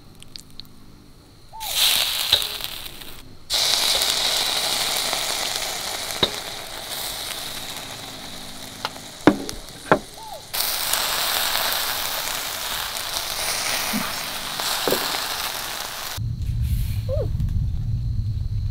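Meat sizzling in hot fat, a dense hiss that cuts in and out a few times, with a few sharp clicks. A low hum takes over near the end.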